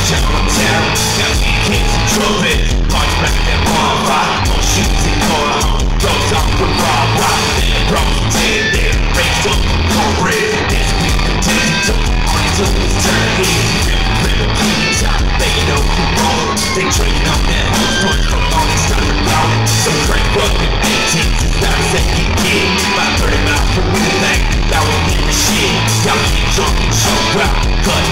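Live band playing a loud song through a club PA: electric guitars, bass guitar and drums with a steady beat, and vocalists singing into microphones.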